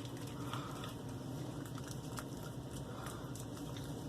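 Wet hands working a pre-shave soap cube: faint, scattered crackly clicks over a steady low hum.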